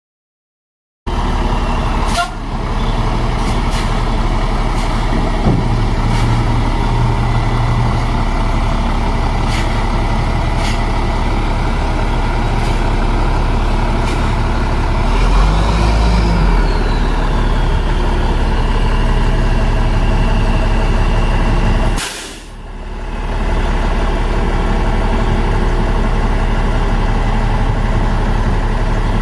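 International DT530 inline-six diesel engine of a dump truck running steadily as the dump bed is raised, starting about a second in. There are occasional light clicks, and a sharp click about twenty-two seconds in after which the sound briefly drops.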